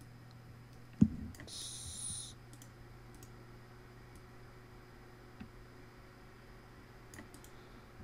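A few faint clicks at a computer desk, one much louder about a second in followed by a short high hiss, over a low steady hum.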